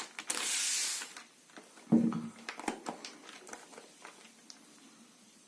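Plastic packaging rustling and crinkling for about a second, then a single short low thump about two seconds in, followed by a few light handling clicks that fade away.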